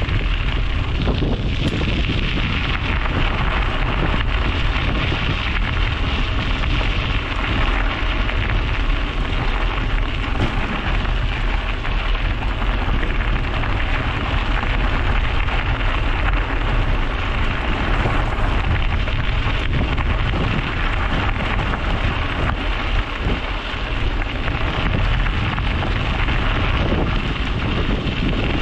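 Steady wind rushing over an action camera's microphone while cycling, mixed with the noise of bicycle tyres rolling on the road.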